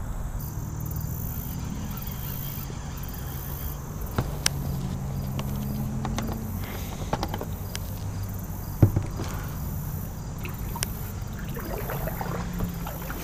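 Knocks and clicks of paddle and fishing gear against a kayak as it is paddled, a few sharp strokes with the loudest about nine seconds in, over a steady low hum.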